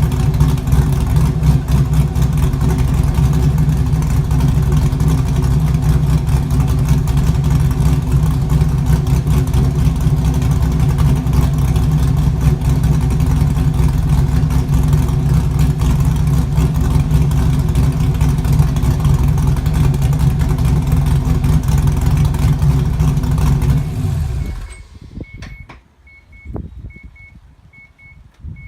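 Mazda RX-7's swapped-in LS1 V8 idling steadily through an exhaust with no rear mufflers, then switched off about 24 seconds in. After it stops, a faint beeping chime sounds about twice a second, with a few soft knocks.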